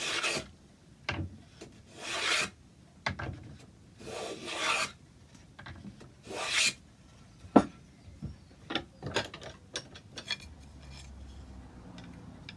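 Rasping strokes of a hand tool across wood: four separate scrapes about two seconds apart, then a single sharp knock, followed by light taps and clicks.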